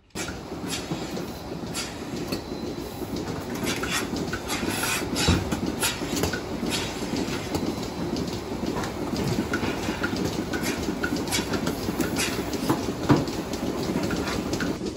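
Steady mechanical rumbling and rattling with frequent irregular clicks and knocks, starting suddenly; one sharper knock stands out near the end.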